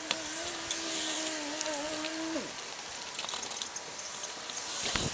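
A steady motor hum, its pitch wavering slightly, winds down with a falling pitch and stops about halfway through. Scattered light clicks and taps come from a plastic roof vent being handled and pressed onto asphalt shingles, with a low thump near the end.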